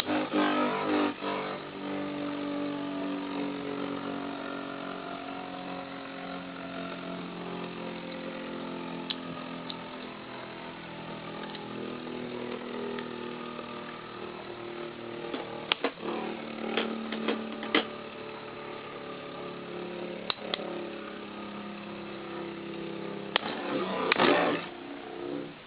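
Two Beyblade metal spinning tops spinning against each other: a steady whirring hum whose pitch drifts slowly, broken by sharp clacks as they collide, a few around two-thirds of the way through and a rattling cluster near the end.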